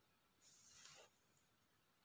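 Near silence, broken by one faint, brief scrape of diced tomato being pushed together on a wooden cutting board, about half a second in.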